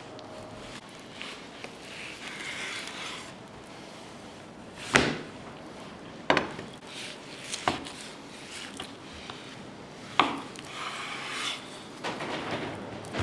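Knife cutting lamb fat tail on a wooden cutting board: rasping, scraping strokes, with four sharp knocks on the board.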